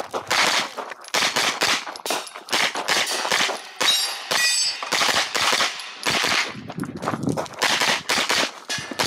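Pistol-caliber carbine firing a rapid string of shots close to the microphone, about two shots a second with short pauses between target arrays.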